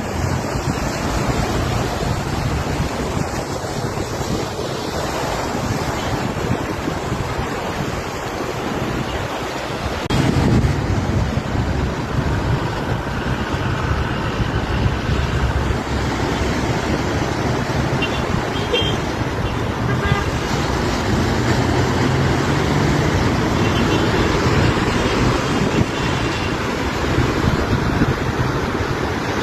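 Waves washing on the shore mixed with steady road traffic, with a few car horns tooting now and then.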